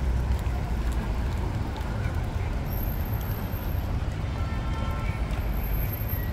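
Steady outdoor city ambience while walking: a low rumble of road traffic with faint voices of people passing on foot.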